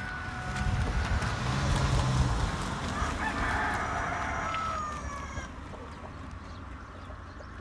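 Farm geese honking with chickens clucking, over a low rumble; the calls are loudest in the first few seconds and then fade.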